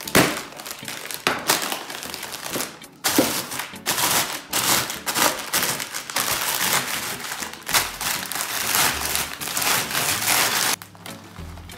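Wooden rolling pin pressed and rolled back and forth over a bag of potato chips: the foil bag crinkles and the chips crackle as they are crushed into crumbs. Stops near the end.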